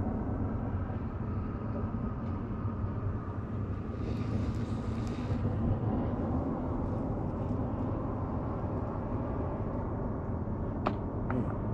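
Boat motor running steadily with a low hum. There is a brief hiss about four seconds in and a few sharp clicks near the end.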